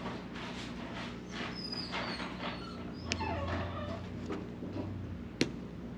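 A dog whimpering, high thin whines that rise and fall, with a single sharp click about five seconds in.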